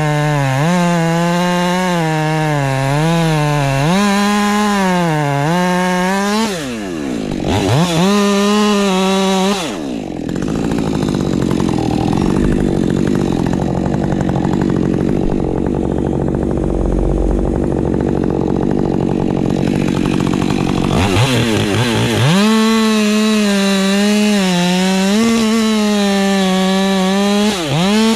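Ported Husqvarna 550 XP Mk II chainsaw with a 20-inch bar, running at high revs and cutting wood, its pitch dipping and recovering under load. About ten seconds in it drops to a low idle for roughly eleven seconds, then revs up and cuts again before letting off near the end.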